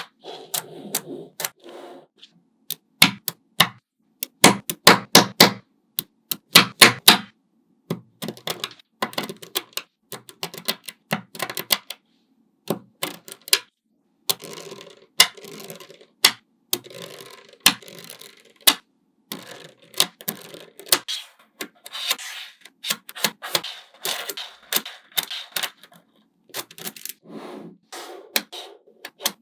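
Small magnetic balls clicking as they snap onto each other: a long run of sharp clicks, in quick clusters broken by short pauses.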